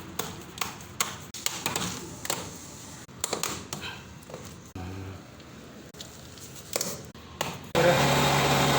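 Irregular knocks and taps, like hand tools striking pipe fittings during plumbing work. Near the end a much louder steady sound starts abruptly.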